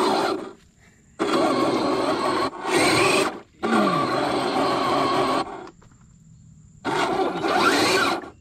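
Brushless 2300kv motor and gear transmission of a 1/10-scale SCX10-based RC crawler whirring in about five short throttle bursts, each cutting off abruptly, with quiet gaps between, the longest a little before the end.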